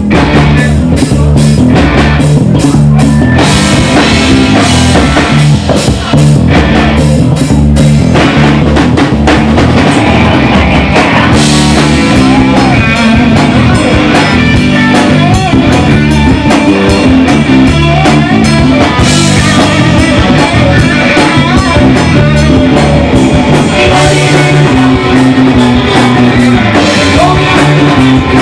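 Live rock band playing loud: drum kit, electric guitar and bass guitar.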